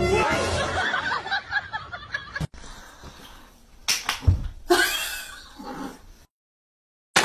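A person giggling and laughing, loudest in the first two and a half seconds, then a quieter stretch with a few short sounds after a cut, and a moment of silence near the end.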